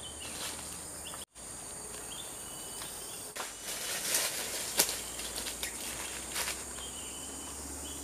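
Steady high-pitched insect chorus of crickets or cicadas in tropical forest, with rustling and crackling of dry leaf litter underfoot from about three and a half seconds in and one sharp click near five seconds. The audio cuts out briefly just after a second in.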